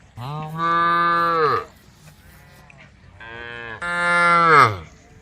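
Cattle mooing: two long, loud moos, each starting softer, holding a steady pitch and then dropping in pitch as it ends.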